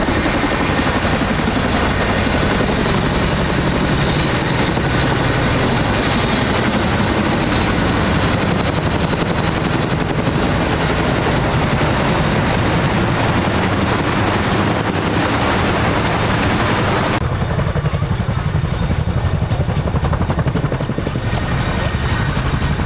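Boeing CH-47 Chinook tandem-rotor helicopters flying low, a loud steady rotor beat, while carrying underslung vehicles. About three-quarters of the way through, the sound abruptly becomes duller.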